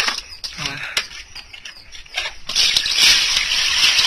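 Short knocks and rustles of a plastic basket being fitted over a plastic bucket of fish, then, about two and a half seconds in, a loud rush of water as the bucket is tipped over and drains through the basket, splashing onto concrete.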